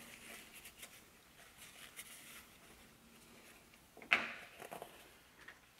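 Faint rustling of a paper towel as small plastic bearing parts are patted dry, then one sharp plastic click about four seconds in as a part is taken out of a plastic tub.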